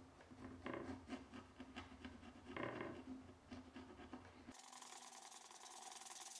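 Hand scraping on oak veneer: a few separate strokes of a thin pointed tool dragged along a groove to lift leftover paint. About four and a half seconds in, this gives way to a faint, rapid, high-pitched rubbing as a fingertip works along the edge by hand.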